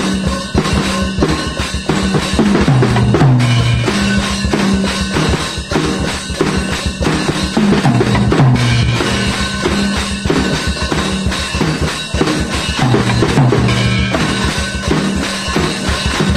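Acoustic drum kit being played: a fast, steady rock beat of kick, snare and cymbals, broken by tom fills about every five seconds.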